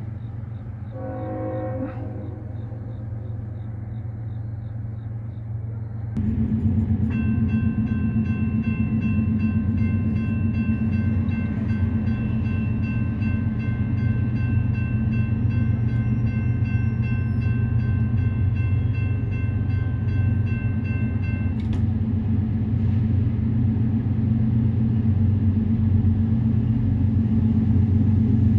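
Railroad grade-crossing warning bell ringing with steady, evenly repeated strikes from about seven seconds in, stopping abruptly about twenty-one seconds in as the gates come down. Under it, a low steady rumble starts suddenly about six seconds in and grows louder toward the end as a Norfolk Southern freight train approaches.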